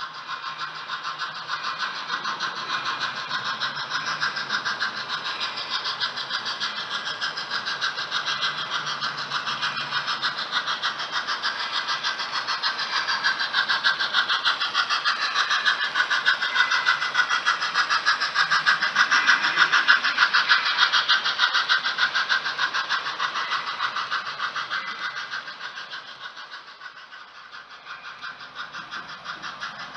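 HO-scale model freight train running past on the layout track: a steady dense clatter of small metal wheels on rail. It swells to its loudest about two-thirds through, fades near the end, then picks up again.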